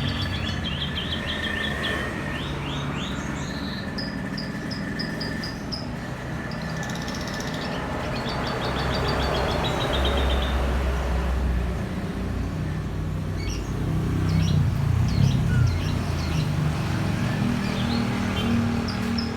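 A kuricang songbird singing in runs of rapid, repeated high chirps and trills, phrases copied from a lovebird's song. A steady low rumble runs underneath.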